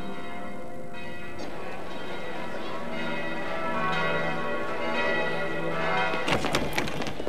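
Large church bells ringing in overlapping, lingering tones. About six seconds in, a short burst of clatter cuts across them.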